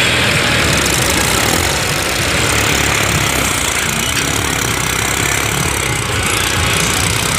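New Holland 3630 tractor's three-cylinder diesel engine running steadily under heavy load as it drags a soil leveller, hard enough to lift the front wheels off the ground.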